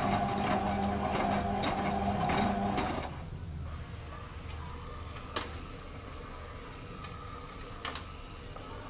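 Hotpoint WM31 washing machine's drum motor whining as it tumbles the wet wash, cutting off suddenly about three seconds in. A quieter pause in the tumble follows, with a faint steady hum and two sharp clicks, while the heater holds the wash temperature.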